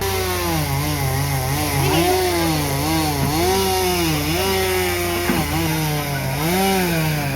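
Chainsaw running continuously, its engine revving up and down again and again while cutting up a fallen tree.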